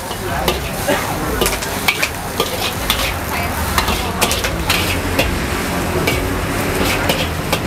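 Metal spatula scraping and clanking against a steel wok while petai beans, egg and chicken sizzle in hot oil, with irregular sharp strikes about twice a second over steady frying.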